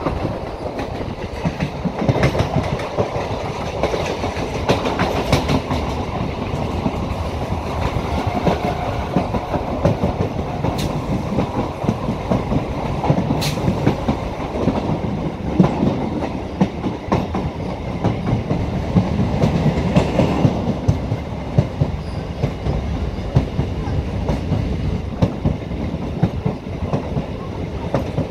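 MEMU electric passenger train running along the track, heard from on board: a steady rumble of the coach with rapid irregular clicking of the wheels over the rails.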